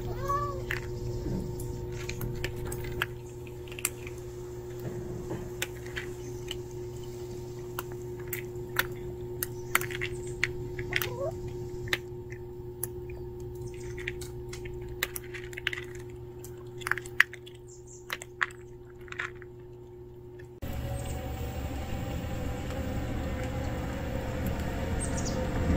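A cat chewing dry kibble from a plastic tray: irregular crisp crunches, several in a second, after a short meow right at the start. About 21 s in the crunching gives way to a steady background rumble.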